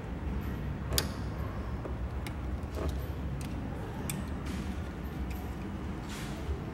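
Workshop sounds: scattered sharp clicks and knocks of hand tools and metal parts being handled over a low steady hum, the sharpest about a second in.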